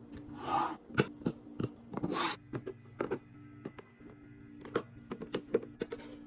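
Packaged snacks and drinks being handled and set in place: plastic packaging swishes twice, and bottles and packages give many light clicks and knocks, over a steady low hum.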